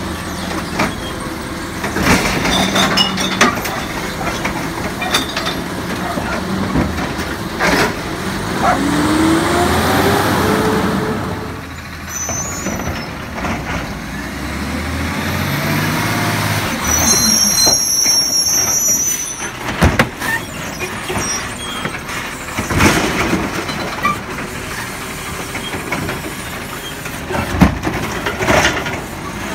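Peterbilt 520 garbage truck with a Labrie Automizer side-loading arm at work: the engine runs and revs, rising in pitch as the truck pulls ahead. Sharp bangs come from carts being grabbed and dumped, and air brakes hiss near the middle as the truck stops at the next cart.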